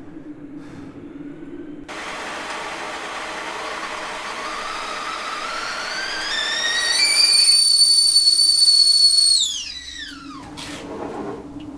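Kettle coming to the boil: a rushing hiss starts suddenly, then a whistle rises steadily in pitch and grows loud and high. The whistle holds for about two seconds, then slides down in pitch and stops.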